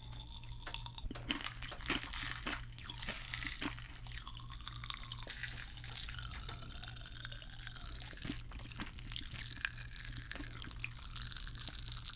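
Pop Rocks candy crackling and popping in a mouth held close to the microphone: a dense, irregular run of tiny snaps and fizz, over a low steady hum.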